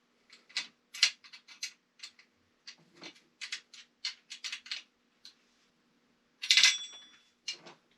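Small metal wrench clicking and clinking against a nut and bolt in a series of irregular short ticks as a cart wheel is screwed tight. About two-thirds of the way through comes one louder metal clank with a brief ring.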